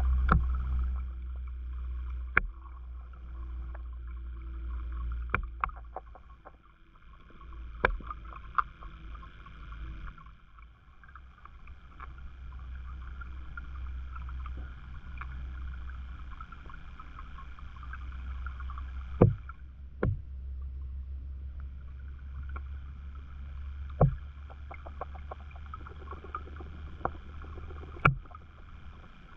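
Muffled underwater sound picked up through a submerged camera's housing: a steady low rumble and hiss, with sharp clicks or taps every few seconds, the loudest a little past halfway.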